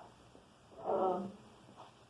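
A person's voice: one short untranscribed word or vocal sound about a second in, with low room tone around it.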